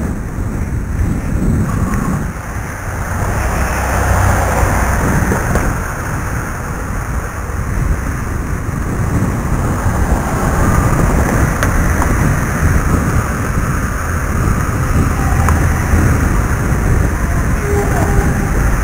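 Wind buffeting the built-in microphone of iVUE Crossfire video glasses worn while cycling: a loud, steady, rumbling rush that swells and eases as the rider moves.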